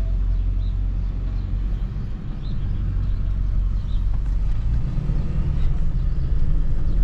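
Steady low rumble of a truck's engine and road noise heard from inside the cab while driving, with a few faint, short high chirps over it.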